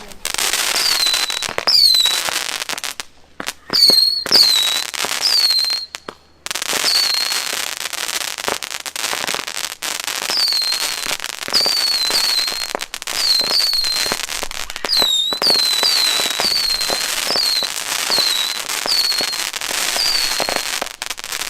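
Fireworks going off, a dense crackle with many short high whistling tones that dip in pitch, broken by two brief lulls about three and six seconds in.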